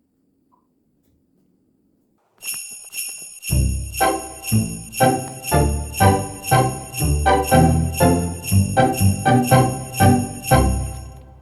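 Background music with jingling sleigh bells and a steady beat, coming in about two seconds in after near silence.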